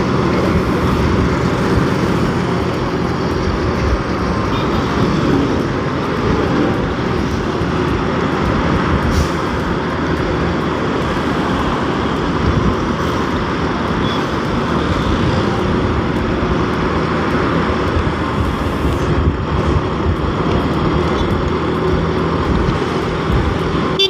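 Motorcycle riding noise at road speed: wind rushing over the microphone and the bike's engine running steadily, with surrounding highway traffic.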